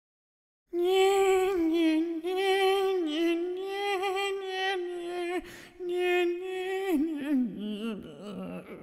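A comedic dubbed voice holding a long, wavering, wail-like note, starting about a second in and breaking off a few times, then sliding down into lower, choppier vocal sounds near the end.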